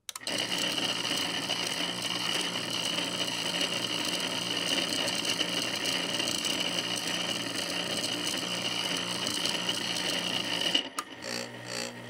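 Boiler circulating pump running loudly with a steady high whine, a noise taken as the sign that the pump is on its way out and will fail soon. It cuts off abruptly near the end, leaving a quieter steady hum.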